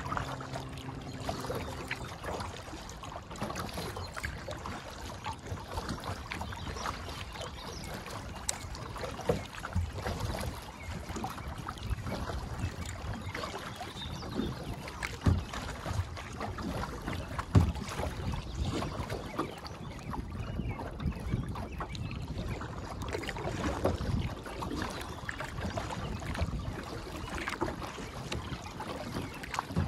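Water splashing and lapping around a kayak as it is paddled across choppy water, with irregular splashes from the paddle strokes. Wind blows across the microphone.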